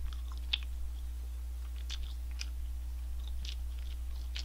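Close-up chewing of a McSpicy Shanghai Deluxe fried chicken burger: soft wet mouth sounds with small crunches and clicks at irregular moments, over a steady low hum.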